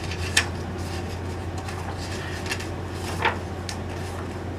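Quiet room tone with a steady low hum, broken by a few short, light clicks: one just after the start and a slightly louder one about three seconds in.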